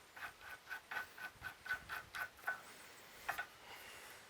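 Light metallic clicking, about four evenly spaced clicks a second with a slight ring, then a single click near the end, from the sawmill log stop's chain and tensioning hardware being worked by hand.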